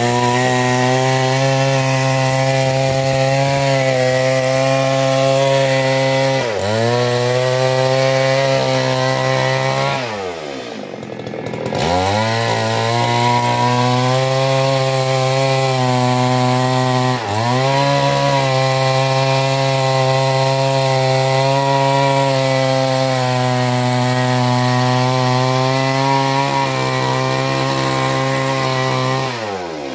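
Stihl MS 382 two-stroke chainsaw running at full throttle while bucking a log, its engine pitch steady under load and sagging briefly twice before recovering. About ten seconds in the throttle is let off and the engine drops to a lower pitch for a second or two before revving back up, and it drops again at the end.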